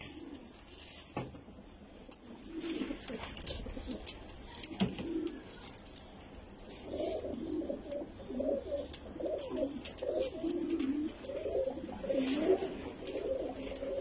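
Several Iranian domestic pigeons cooing, their calls overlapping and becoming nearly continuous from about halfway through, with a few sharp taps.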